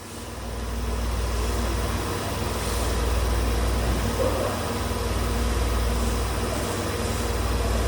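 A train running: a steady low rumble with a light haze of running noise above it.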